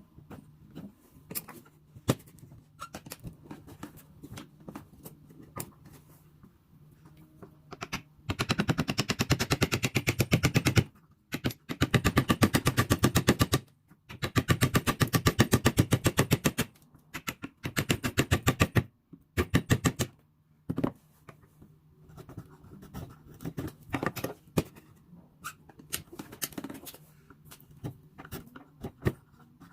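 Rapid, evenly spaced mechanical hammering in four bursts of two to three seconds each, like a power tool working metal, with scattered clicks and scrapes between the bursts.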